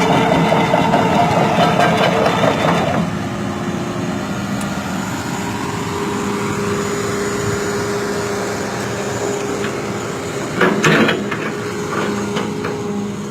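Hydraulic excavator's diesel engine running, loud for about three seconds and then easing to a lower, steady run. About eleven seconds in comes a short, loud burst of noise, with a few clicks after it.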